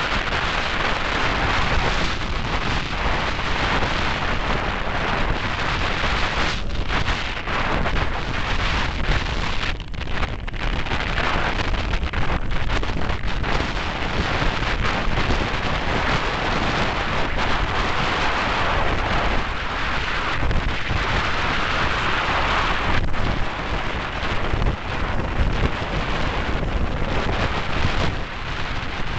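Strong gusting wind buffeting the microphone: a heavy low rumble over a steady loud hiss, with brief lulls about six and ten seconds in.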